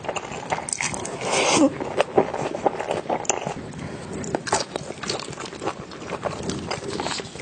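Close-miked eating: a person biting and chewing food, with many short crunches and clicks at an uneven pace.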